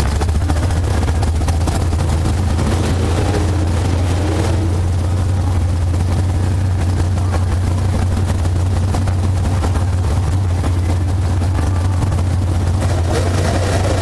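Race car engine running at a steady idle, a low rumble heard from inside the cockpit.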